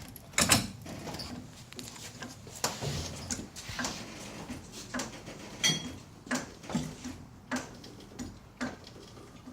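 Car jack being worked to raise the vehicle: a series of sharp clicks and knocks, about one or two a second.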